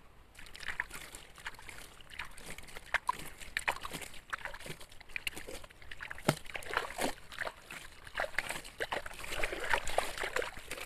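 Water splashing and trickling over plastic toy dump trucks and loose gravel, with many short irregular clicks and clatters, busiest near the end.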